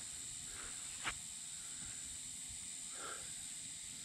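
Steady high-pitched drone of insects in the creekside bush, with one sharp click about a second in and a short faint call about three seconds in.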